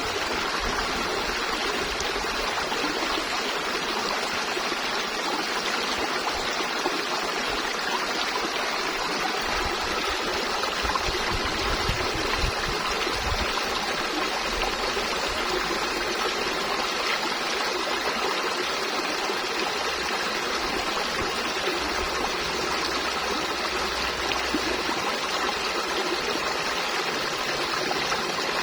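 A river flowing over rocks, a steady rushing and trickling of water.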